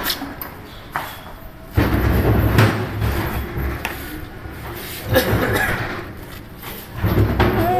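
Knocks and clatter from the hinged sheet-metal end cover of a BV20 mini lathe being opened and handled, with spells of low rumbling handling noise.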